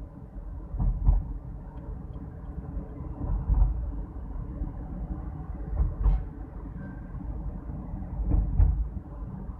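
A car being driven along a road, heard from inside the cabin: a steady low engine and tyre rumble with a few louder low thumps.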